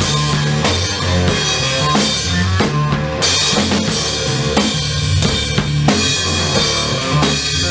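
Rock music: a drum kit with bass drum and snare playing a steady beat under bass guitar notes.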